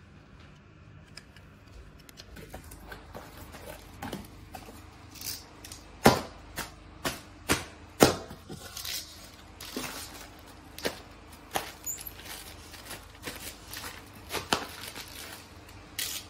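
Hands handling plastic-wrapped parts in a cardboard box: irregular crinkling and crackling of plastic packaging with knocks against cardboard, starting about two seconds in, loudest about six and eight seconds in.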